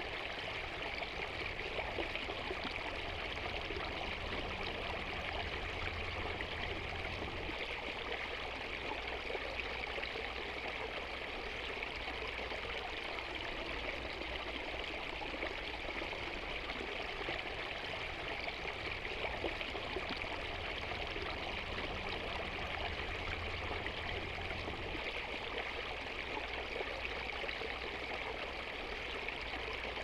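Small stream running steadily, an even rushing trickle of water splashing over stones.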